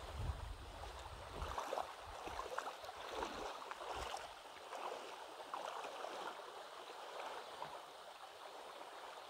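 River water rushing and splashing, with irregular gurgles throughout. There are low thumps in the first second and a half and again about four seconds in.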